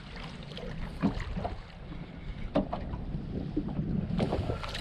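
Wind buffeting the microphone in a steady low rumble, with two sharp knocks, about a second and about two and a half seconds in.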